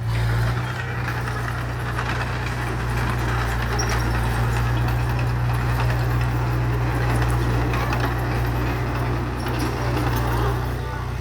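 Heavy diesel engine of earthmoving machinery running steadily under load, a constant low drone with rough mechanical noise over it.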